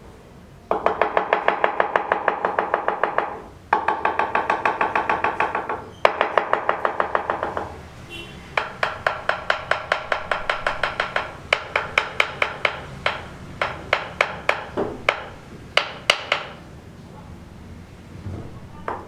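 Hammering with a ringing tone on each blow. It comes in three quick bursts of about seven blows a second, then slows to spaced strikes that stop about three seconds before the end.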